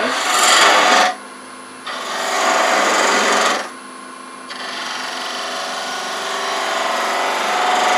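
Narrow pointed turning tool cutting into spinning wood on a lathe: three bursts of scraping hiss, the last one quieter and longer, with the lathe's motor hum steady in the short gaps where the tool comes off.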